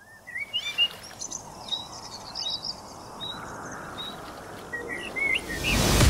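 Small songbirds chirping in many short, quick phrases over a steady background hiss, like a nature ambience. Near the end a rising rush of noise swells up as music starts.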